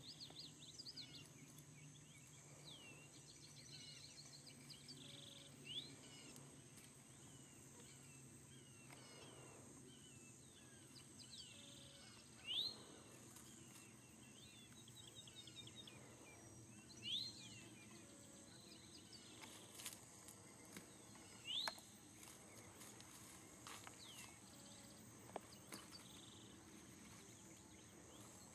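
Outdoor ambience. A bird repeats a short, sharp rising whistle about every four to five seconds, with softer chirps and trills from other birds between the calls and a steady high-pitched hum behind them.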